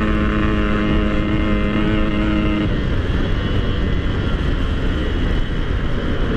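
Yamaha RX-King two-stroke single-cylinder motorcycle riding along with a steady engine note; about two and a half seconds in the note drops away, leaving wind and road rush.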